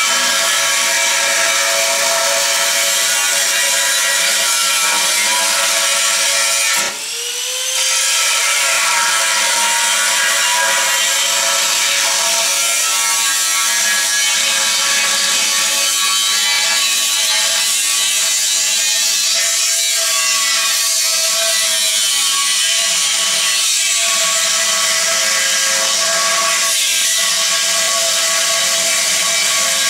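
Angle grinder cutting into the steel wall of a gas tank, its motor whining steadily under load. About seven seconds in it briefly eases off and spins back up to speed.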